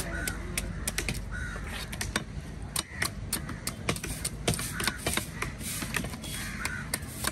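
A large knife scraping scales off a red snapper in quick, clicking strokes, with the odd knock on the wooden chopping block. Crows caw a few times.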